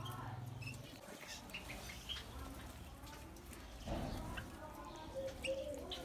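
Small aviary birds chirping now and then, faintly, over a low steady hum that stops about a second in. A wavering cooing call starts near the end.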